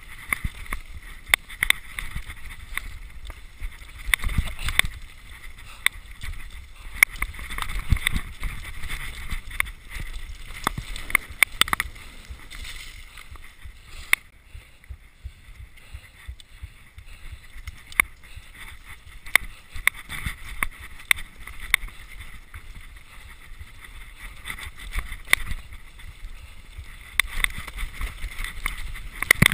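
Downhill mountain bike descending a steep, muddy forest track: a steady rush of tyre and wind noise with frequent sharp knocks and clatters as the bike hits roots and bumps, thinning out for a while around the middle.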